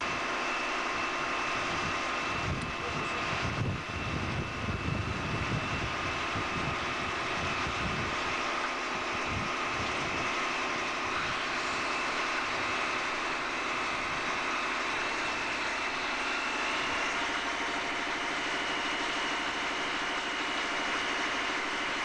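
A fire engine's engine running steadily, driving its pump to supply a hose jet. There are some low rumbling surges a few seconds in.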